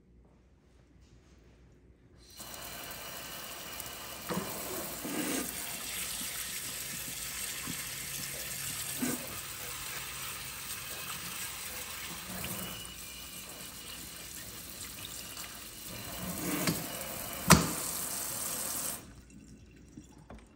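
Kitchen faucet spray head running water over berries in a ceramic colander in the sink; it starts about two seconds in and stops shortly before the end. A few knocks sound over it, the loudest a sharp clack near the end.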